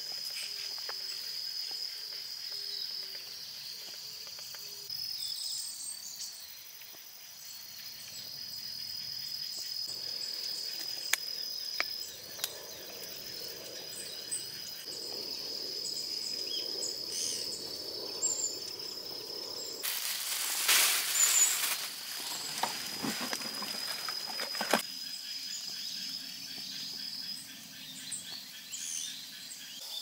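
Insects trilling steadily on one high pitch, with a few light clicks and handling noises. The loudest sound is a burst of rustling about twenty seconds in.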